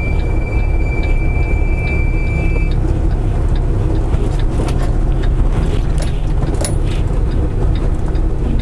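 Semi-truck running at low town speed, heard from the cab: a steady low engine and road rumble. A thin steady high tone sounds for the first few seconds and cuts off about three seconds in, with scattered light clicks after it.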